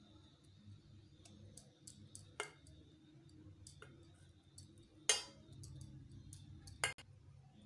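Steel spoon tapping and scraping against a steel bowl as a soft egg-and-cabbage mixture is pressed flat, with small clicks throughout and three louder clinks about two and a half, five and seven seconds in.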